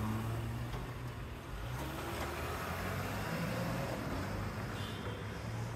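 Motor vehicle engines running in city street traffic at close range: a steady low engine hum, with a pitch that glides up and down around the middle as a vehicle pulls away. A pickup-based tow truck is manoeuvring close by.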